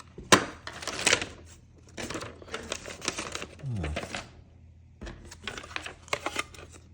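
Hard plastic toy playset pieces being handled and clipped together: a string of sharp clicks and short rattles.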